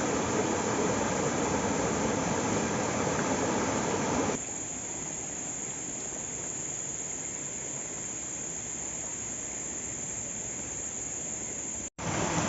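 Steady rush of falling water from a waterfall. About four seconds in it cuts abruptly to a quieter, hissier steady noise. Near the end there is a brief dropout, and then the louder rush returns.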